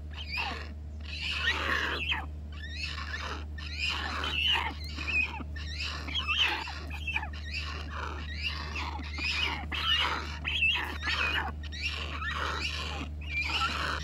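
Young rhinoceros hornbill giving harsh begging calls over and over, about one and a half to two a second, while being hand-fed.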